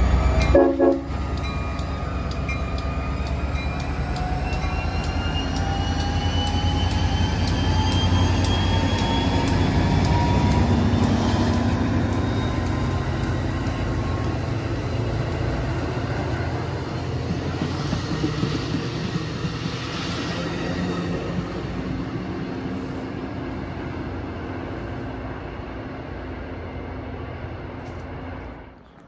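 Passenger train running past close by and moving away: a steady rumble of wheels on rail, with a whine that climbs slowly in pitch, gradually fading toward the end. A brief horn note sounds right at the start.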